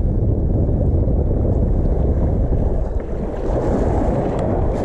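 Wind buffeting the microphone: a steady, loud low rumble without any distinct pitch.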